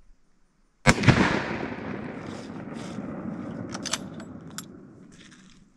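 A single shot from a scoped .303 British Enfield rifle about a second in, followed by a long rolling echo that dies away over several seconds. A few clicks sound during the fading echo.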